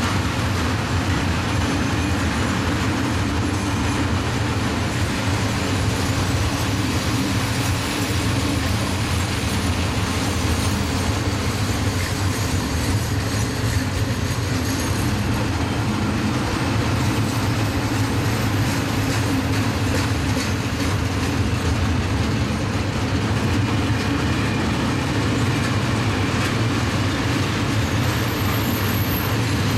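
A train of Eaos open freight wagons rolling steadily past: a continuous rumble and rattle of wheels on the rails.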